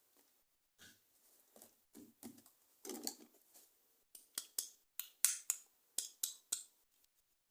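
Plastic toy packaging being handled with soft rustling, then a quick run of about ten sharp clicks in the second half.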